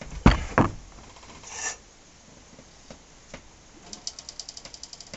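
Transmission main gear nut on a Harley-Davidson Dyna cracking loose under a breaker bar and socket: two sharp metallic cracks about a third of a second apart near the start, then a brief scrape. Near the end comes a quick run of clicking as the nut turns, which comes off crunchy rather than smoothly.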